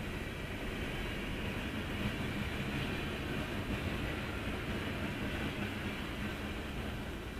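Freight train cars rolling past on the track, a steady noise of wheels on rail heard from inside a parked car.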